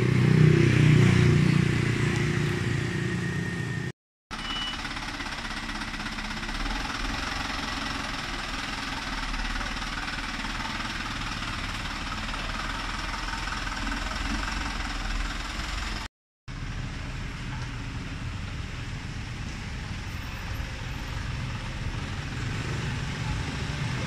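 Truck engine running steadily with road noise. The sound drops out for a moment twice, about four seconds in and again about sixteen seconds in. Before the first dropout a louder low rumble is the loudest thing.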